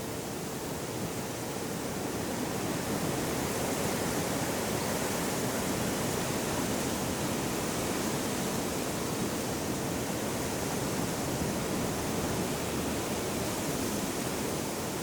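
Welsh hillside ambience: a steady rushing outdoor noise that grows a little louder over the first few seconds and then holds.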